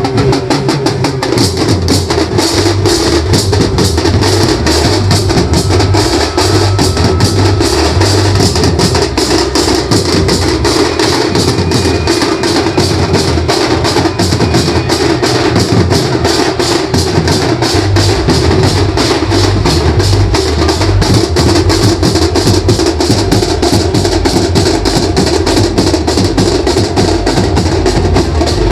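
Banjo band playing percussion-heavy procession music: rapid drumming over a pulsing bass-drum beat.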